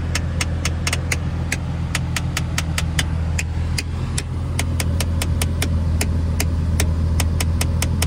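Nissan 350Z's A/C blend door actuator clicking rapidly behind the passenger-side dash, about four sharp clicks a second, over the steady low hum of the running car. This is the fault that makes the AC click on recirculation, and it is pinned 100% on the blend door actuator.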